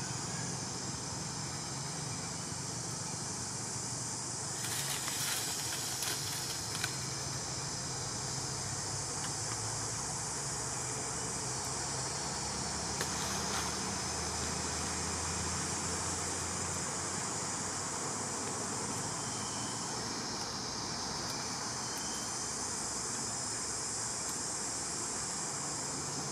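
Steady high-pitched drone of an insect chorus in forest, with a low hum underneath and a few brief crackles about five to seven seconds in.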